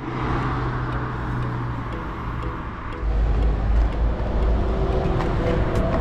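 Steady low rumble of a motor vehicle running, growing heavier about three seconds in.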